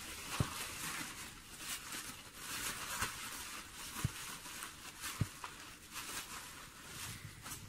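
Plastic bubble wrap rustling and crinkling as it is pulled apart and handled, with a few sharp clicks scattered through.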